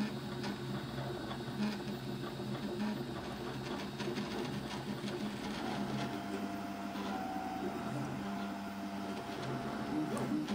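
Prusa i3-style 3D printer running a print, its stepper motors whirring and whining. The tones shift in pitch as the print head changes moves, and a higher whine joins about halfway through.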